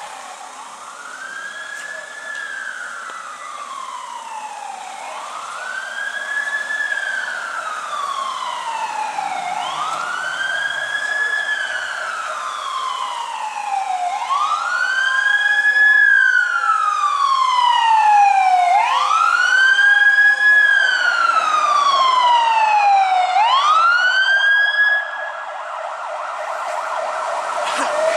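Emergency vehicle siren in a slow wail, each cycle rising quickly and falling slowly over about four to five seconds, growing louder as the vehicle approaches.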